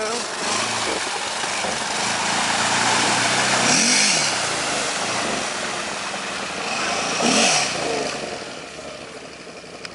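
Can-Am 1000's V-twin engine running under load off-road, revving up and back down twice, each rev with a burst of hiss, then fading away near the end.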